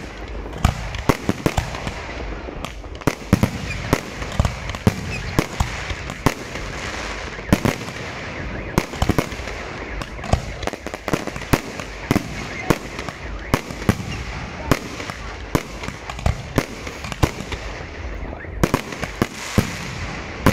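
Aerial fireworks display: shells bursting in quick, irregular succession, about one or two sharp bangs a second over a steady background noise.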